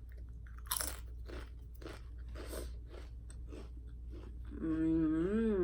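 Close-miked chewing of crunchy food, with irregular crisp crunches and one louder bite about a second in. Near the end, a hummed "mmm" whose pitch dips and rises.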